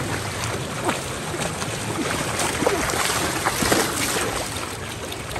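Floodwater running steadily, with a few brief sounds over it, some of them sliding down in pitch.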